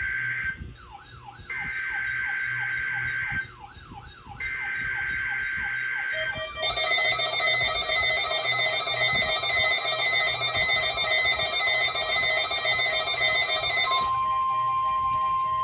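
NOAA Weather Radio SAME alert header: screeching two-tone digital data bursts, repeated about a second apart, while receivers start sounding warbling, sweeping alert sirens. About six seconds in, several weather alert radios' alarm tones and beeps sound together, and near the end a single steady warning alarm tone (the 1050 Hz tone) starts.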